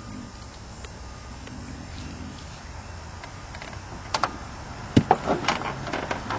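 Sharp clicks and knocks of parts being handled as an old, broken fuel filter is worked out of its housing. They come in a cluster beginning about four seconds in, loudest about a second later, over a steady low hum.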